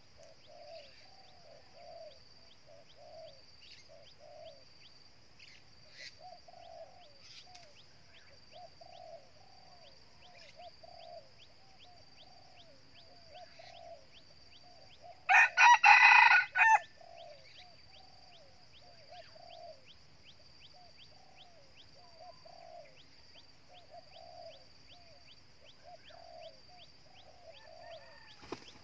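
Red junglefowl rooster crowing once, a short broken crow about a second and a half long, about halfway through. Beneath it run a faint steady high insect buzz and soft low calls repeating about once a second.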